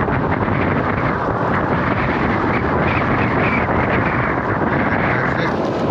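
Strong wind buffeting the microphone, a loud, steady rushing rumble.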